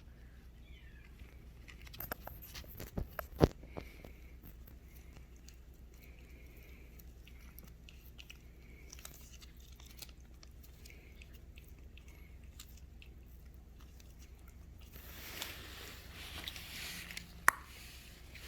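Kittens scrabbling on a blanket: scattered small scratches and clicks as their claws catch in the fabric, with a couple of sharper knocks and a stretch of rustling near the end.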